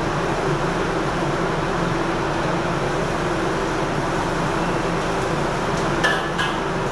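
Steady roar of a commercial kitchen's gas wok burner and exhaust fan, with a low hum running through it. Near the end come two sharp metal clinks of cookware, less than half a second apart.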